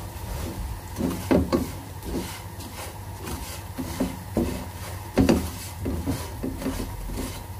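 Spatula stirring and scraping peanuts through dry, crystallised sugar in a pan: an uneven scraping rub in repeated strokes, loudest a little after one second in and again around five seconds in. The sugar syrup has dried to a grainy coating, a stage in candying peanuts.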